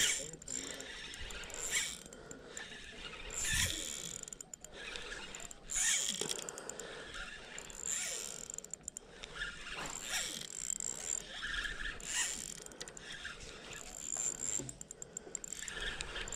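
Spinning reel being cranked under load, its gears and handle mechanism clicking in surges every couple of seconds, while a hooked jack crevalle is fought on the line.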